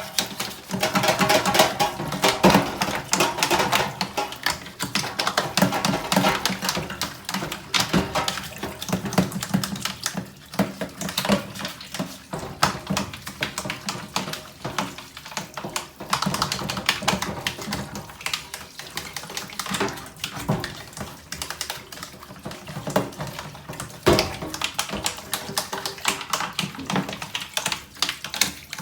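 Toothbrush scrubbing the plastic blades of a washing machine's wash plate to loosen caked-on dirt: quick, uneven scratching and clicking strokes.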